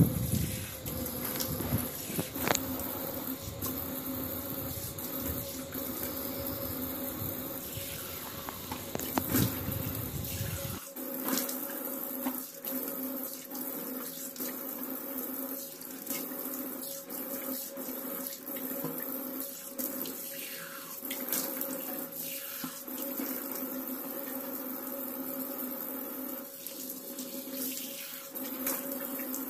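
Water running from a tap into a sink while hands splash it onto a face, rinsing off a homemade face pack, with many small splashes.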